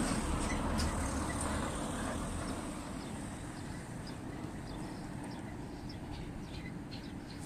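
Outdoor ambience: a low rumble that fades over the first few seconds, then steady, with faint short bird chirps scattered through the second half.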